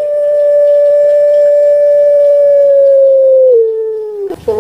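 Puter pelung dove (Barbary dove, Streptopelia risoria) giving one long drawn-out coo, held steady for about three and a half seconds, then dropping a little in pitch before it fades. A short new call starts near the end.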